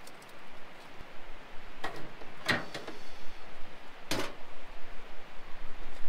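A few sharp knocks and clatters of camp cooking gear being handled, as the lid of a portable camp stove is shut down over the burners. The two loudest knocks come about two and a half and four seconds in.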